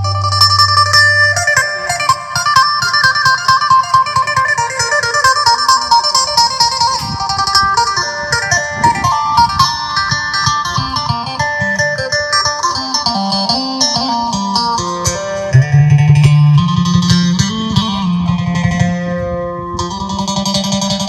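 Instrumental music led by plucked guitar melody, with a bass line moving in steps underneath, played over a loudspeaker system for a sound test of a twin 18-inch TP18 subwoofer cabinet.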